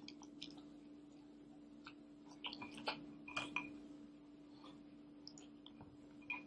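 Faint scattered clicks and crunches of hands picking dry cereal out of a bowl and eating it, busiest from about two and a half to three and a half seconds in, over a low steady hum.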